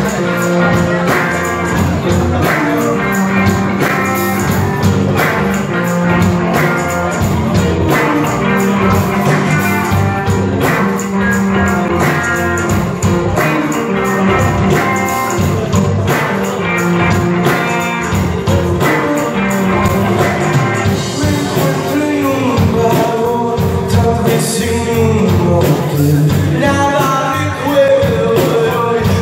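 Live rock band playing: electric guitars, bass guitar and drums at a steady beat, with a man singing over them.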